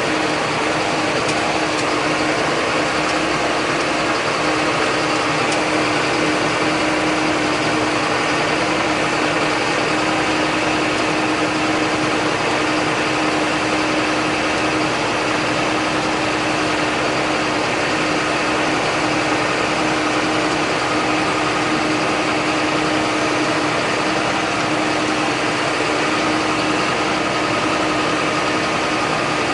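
John Deere 8100 tractor's six-cylinder diesel running steadily, a constant drone with one strong, steady hum.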